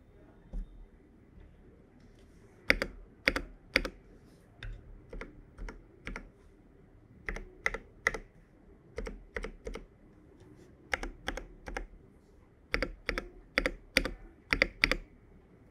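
Geonworks Frog TKL mechanical keyboard with an aluminium plate, no foam and lube-filmed Cobalt POM switches, typed on key by key. The keystrokes come in short uneven runs with brief pauses, starting a few seconds in, and some strokes are louder than others.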